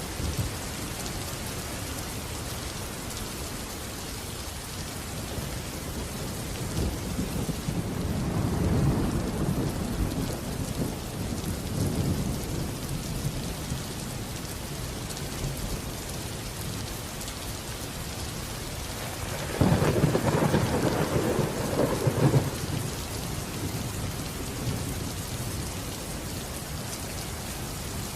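Steady heavy rain with rolling thunder: a low rumble builds and fades over several seconds early on, then a louder, sharper thunderclap breaks suddenly about two-thirds of the way through and rumbles away over a few seconds.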